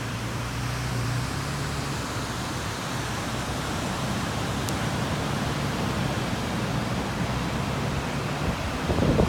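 Steady rush of ocean surf breaking on a beach, with wind on the microphone. A few louder bumps of wind buffeting or handling start near the end.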